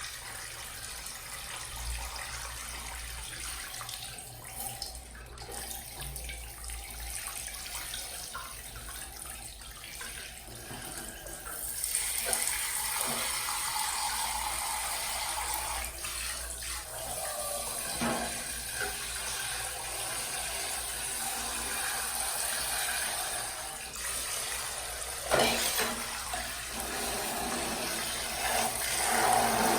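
Water runs from a tap into a sink, starting about twelve seconds in, with a few knocks while items are washed. Before that there are only quieter, scattered handling sounds.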